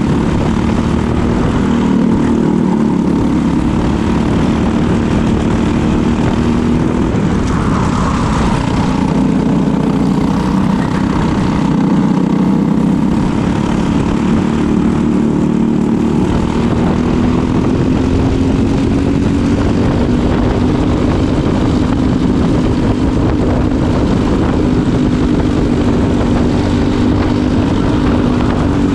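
Briggs & Stratton LO206 four-stroke single-cylinder kart engine running hard at racing speed, its pitch wavering up and down as the throttle comes on and off through the corners.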